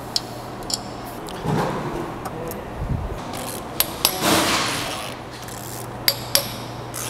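Ratchet and long extension clinking against metal as spark plugs are worked out of a BMW N62 V8's aluminium cylinder head: a few sharp metallic clinks, with two short rasping stretches about a second and a half and about four seconds in.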